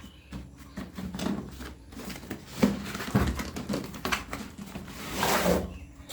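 Cardboard box of a rotary hammer drill being handled and opened: scattered knocks and clicks, with a longer scraping rustle about five seconds in.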